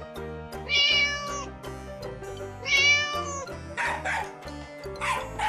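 Cat meow sound effect twice, about two seconds apart, over background music with a steady beat; near the end, several short, sharp calls of another animal follow in quick succession.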